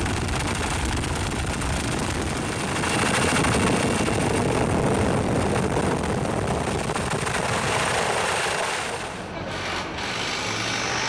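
Helicopter noise heard from on board: fast steady rotor chop with a thin high turbine whine. Near the end it drops away to a quieter steady low hum.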